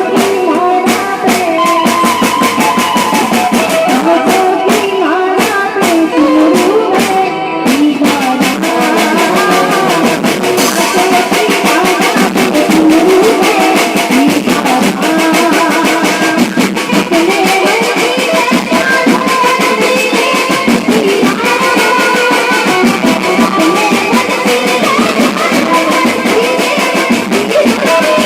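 Loud music with a steady drum beat and melodic instrument lines, played over a sound system, with little deep bass.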